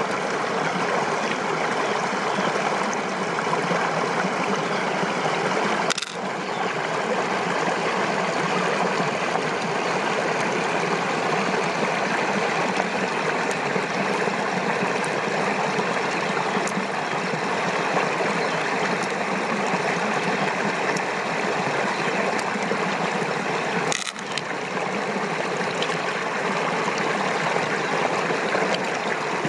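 Steady rush of flowing water, like a stream or runoff, with two brief breaks, about six seconds in and again about eighteen seconds later.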